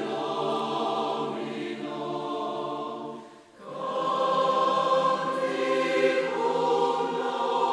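Mixed choir of men's and women's voices singing sustained chords of sacred choral music. The singing breaks off briefly about three and a half seconds in, then comes back louder.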